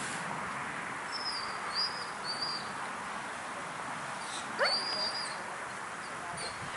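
Rottweiler whining: a few short, thin, high-pitched whines about a second apart, then a quick rising yelp and a longer whine about four and a half seconds in. This is the eager whining of a keen working dog waiting for its next command.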